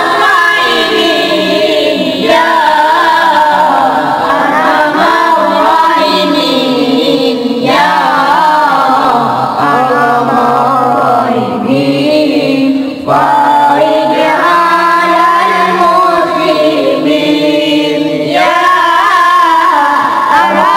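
Young boys singing Islamic devotional song (sholawat) into microphones, with no instruments, in long wavering melodic phrases with brief breaks between them.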